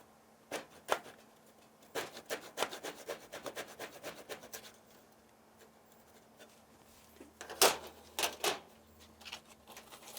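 Hand saw cutting a wooden chair stretcher joint to flatten it, in short strokes. There is a quick, even run of strokes, a pause, then a few louder strokes near the end.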